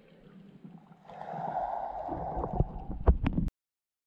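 Muffled water movement heard through an underwater camera, with low thumps and a few sharp knocks near the end, cutting off abruptly.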